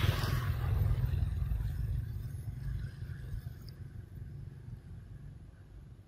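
A motor vehicle engine running with a low rumble, fading steadily as it moves away.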